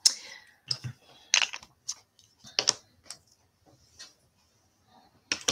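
Plastic stamping supplies being handled on a craft mat: about half a dozen short, sharp clicks and taps, roughly a second apart, as a stamp is set down and ink pad cases are picked up.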